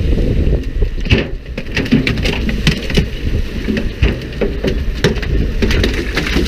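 A barracuda splashing and knocking as it is swung aboard and thrashes in the boat's fish well: many short, irregular splashes and knocks over a steady low rumble.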